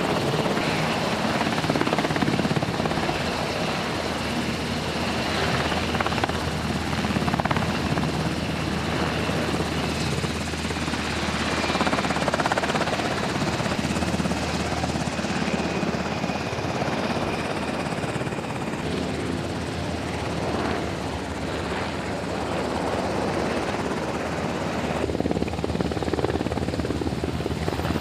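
Military helicopter running, its rotor beat and turbine noise steady and loud.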